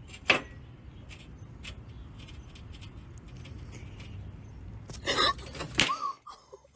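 A sharp clink of a cat's paw against a glass mason jar, then faint taps. Near the end comes a quick scramble of knocks and scrapes on a glass tabletop as the cat jumps down.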